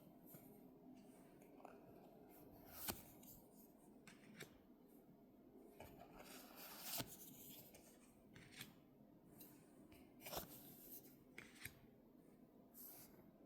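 Faint rustling and light clicks of trading cards and their packaging being handled, with a few sharper snaps about three, seven and ten seconds in.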